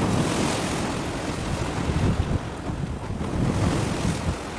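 Wind buffeting the microphone in uneven gusts, over a steady rush of sea and surf noise.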